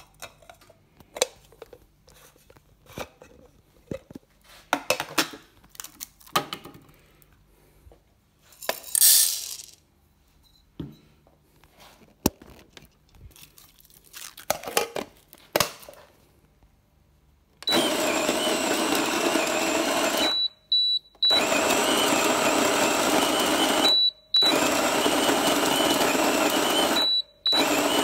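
Coffee beans rattling as they are poured into the hopper of an AVX CG1 conical-burr grinder, among small handling clicks. A little past halfway the grinder's motor starts grinding the beans, a loud steady sound that stops briefly three times, with short electronic beeps at each pause.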